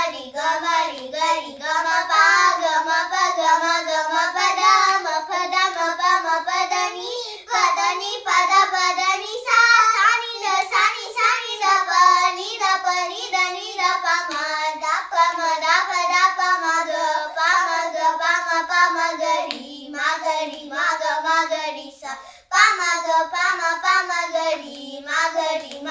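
Two young girls singing a Carnatic alankaram in misra jati jhampa tala together, without accompaniment, on sol-fa syllables (sa ri ga ma). The melody breaks off briefly about three-quarters of the way through.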